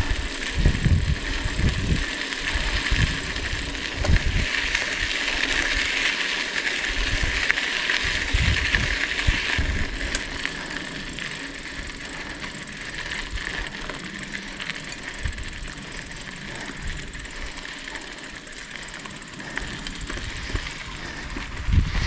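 Mountain bike on the move along a dirt road: a steady hiss and crunch of the tyres over the surface, with wind buffeting the microphone in irregular low thumps and faint rattling clicks from the bike.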